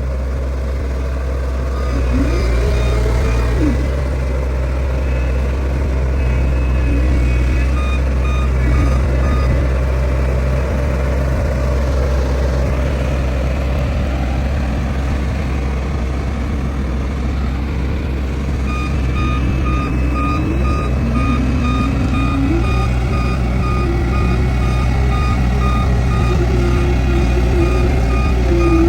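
Heavy diesel construction machine running steadily, its engine pitch rising and falling, with a reversing alarm beeping at about two beeps a second for a couple of seconds near the start and again through the second half.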